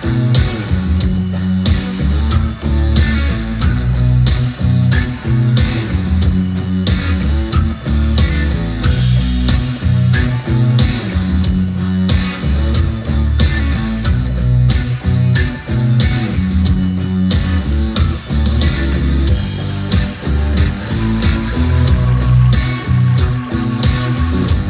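Rock music with guitar, bass guitar and a steady drum beat, played through Edifier R1280 bookshelf speakers.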